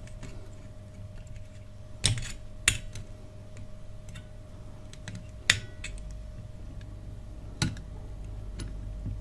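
Screwdriver and needle-nose pliers clicking and tapping against a steel radio chassis while a rubber grommet is worked into a tuning-capacitor mount. There are four sharp clicks among fainter ticks, over a steady low hum.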